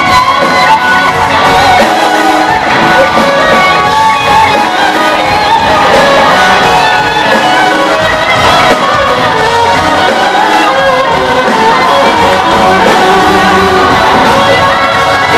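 Loud live band music with electric guitar and singing, heard from within the audience, with shouts from the crowd over it.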